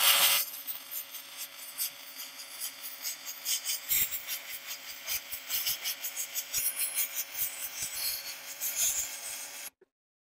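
Electric welding arc on an aluminum hull: a steady hum with constant irregular crackle, struck at the start and cutting off near the end.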